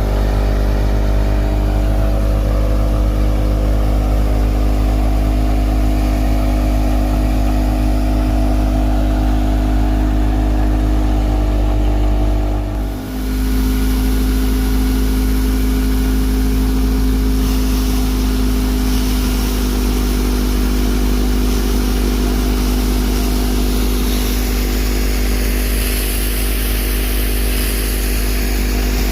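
Tractor-driven wheat thresher running steadily under load: the tractor's engine drone and the thresher's drum. About halfway through the level dips briefly, then the machinery runs on at a slightly changed pitch.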